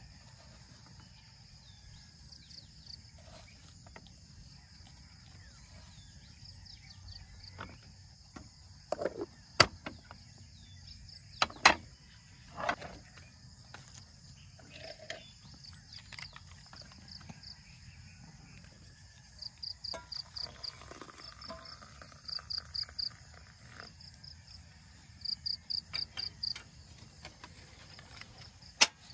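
Crickets chirping steadily in high, rhythmic pulsed trains that grow more insistent in the second half. Over them come a few sharp clinks and knocks of a glass jar, its wooden lid and a spoon handled on a slatted wooden table, the loudest about ten to thirteen seconds in and another near the end.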